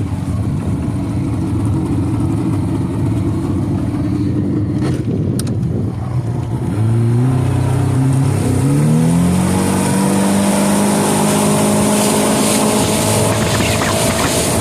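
Yamaha 115 two-stroke outboard motor running at low speed, then throttled up about seven seconds in. Its pitch rises over a few seconds and settles into a steady, higher run under way. It has freshly rebuilt carburetors and a new fuel-pump pulse gasket that stops an air leak.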